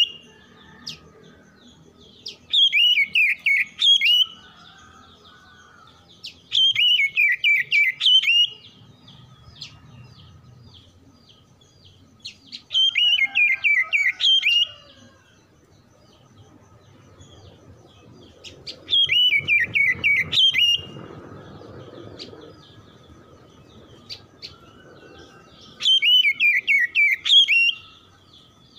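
Oriental magpie-robin singing the same short phrase five times, about every six seconds: a loud, fast run of repeated notes falling in pitch, with faint chirps between the phrases.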